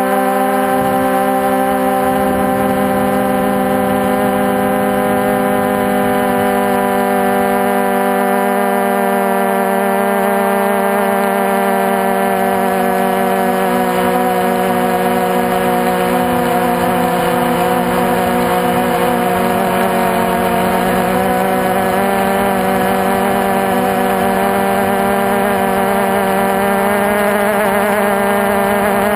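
Multirotor drone's electric motors and propellers humming steadily, picked up by the onboard camera: several steady tones whose pitches drift slightly up and down.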